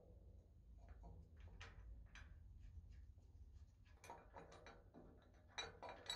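Faint metal clicks and light knocks from a Morso mitre guillotine's steel blade and fittings being handled and fitted by hand. A few scattered clicks come first, then they grow closer together and louder in the last two seconds.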